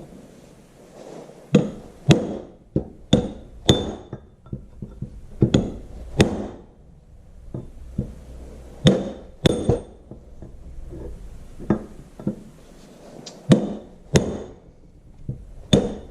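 Repeated hammer blows driving the old oil seal out of a Farmall tractor's bull pinion shaft seal retainer. They come in quick groups of two to four strikes with short pauses between, and several give a brief metallic ring.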